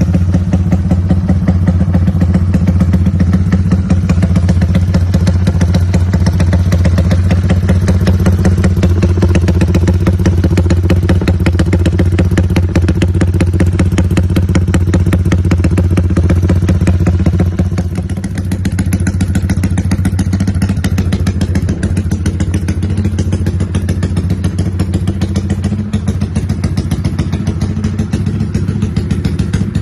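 Yamaha Y15ZR (MX King) 150 cc single-cylinder four-stroke idling through an aftermarket exhaust, with a lumpy, rumbling idle set by retarded 'timing kuda' ignition. It holds steady with no revving, dips briefly a little past halfway, and then runs on slightly quieter.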